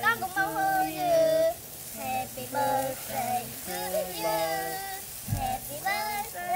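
Children and a woman singing a song together.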